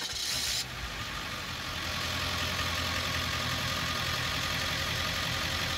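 Ford E-350 Econoline van's engine idling steadily, with a brighter hiss for the first half second.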